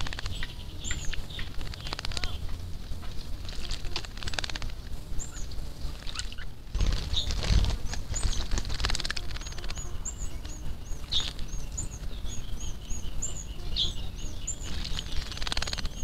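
Pale-legged hornero (casaca-de-couro-amarelo) bathing in a shallow water basin: irregular splashing and fluttering in the water, heaviest around the middle. In the second half a bird gives a quick run of short, high chirps, about three a second.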